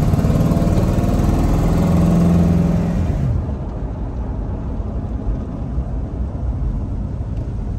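Fuel-injected Ramjet 350 small-block V8 of a hot-rodded 1933 Ford Victoria, heard from inside the cabin, pulling with a rising engine note as the car accelerates. About three seconds in the note drops away and only road and tyre noise remains.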